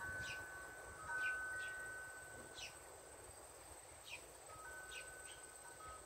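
Metal tube wind chime ringing faintly, a few clear tones held for a second or more, with short high chirps every second or so.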